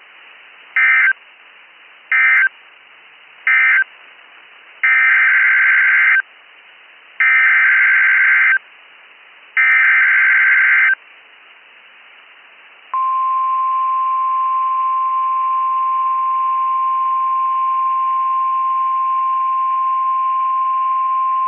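Emergency Alert System signalling on a NOAA Weather Radio broadcast. First come three short screeching bursts of SAME digital data, the end-of-message code closing the previous alert. Next come three longer SAME header bursts announcing the next alert, and from about halfway through a single steady high warning alarm tone, the weather radio's attention signal that precedes a warning.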